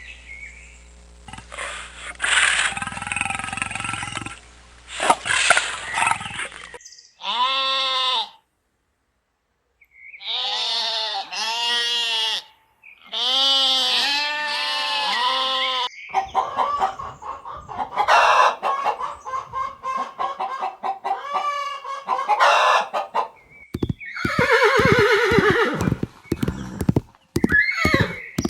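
A string of different animal calls cut one after another: repeated pitched calls, with a short silent break about nine seconds in and a run of sharp clicks near the end.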